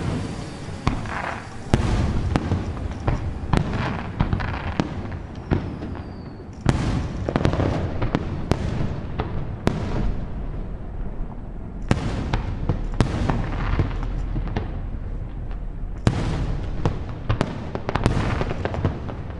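Fireworks display: aerial shells bursting one after another, sharp cracks and booms over continuous rumbling, with rapid clusters of bursts several times. The reports echo off the hills behind.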